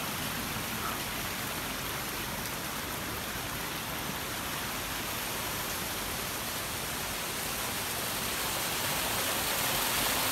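Rushing water of a stone-lined garden stream and its small cascade, a steady wash that grows louder near the end.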